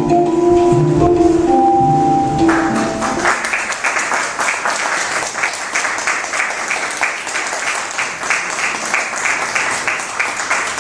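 Music of sustained organ-like chords ends about three seconds in, and an audience breaks into applause, many hands clapping.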